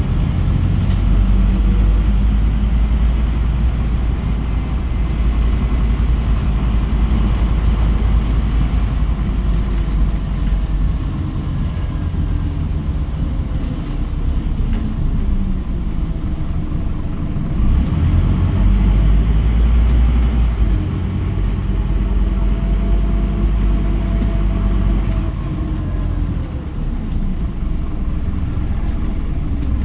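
Scania NewOmnicity city bus heard from inside the passenger cabin while driving: a steady low engine and road rumble, with a faint whine that rises and falls in pitch now and then as it changes speed.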